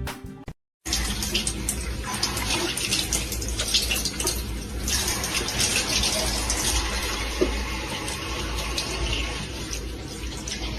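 Steady rushing of running water, starting about a second in after a brief gap, with small scattered splashes or clicks.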